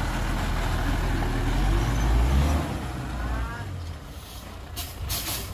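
Heavy vehicle engine rumbling, swelling to a peak about two seconds in and then dying away. Two short hisses follow near the end.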